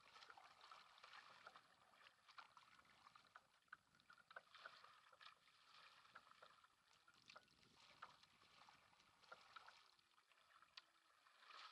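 Faint water sounds of a single sprint kayak (K1) being paddled: paddle blades splashing in and water washing along the hull, with small irregular splashes over a steady hiss.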